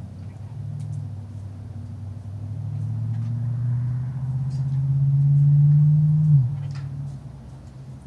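A vehicle driving past: a low engine hum that grows louder for about six seconds, then drops in pitch and fades as it goes by.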